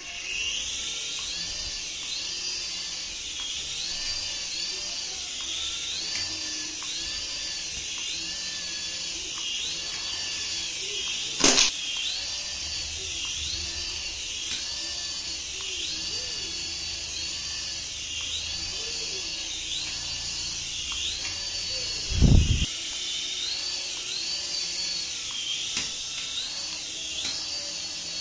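Small electric toy motor whining steadily at a high pitch that wavers up and down in a regular rhythm. A sharp knock comes about eleven seconds in and a low thump about twenty-two seconds in.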